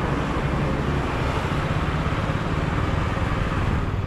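Motorcycle engine running steadily at low speed as the bike edges forward.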